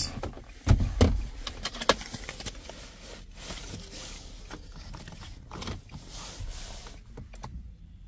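Car keys jangling and clicking as they are handled by the steering column, with a few sharp knocks, the loudest about one and two seconds in.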